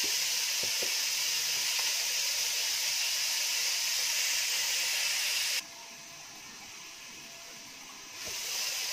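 Sliced onions, carrots and tomatoes sizzling in a little oil in a pot, a steady hiss. The sound drops off suddenly a little over halfway through to a much fainter hiss, then comes back up near the end.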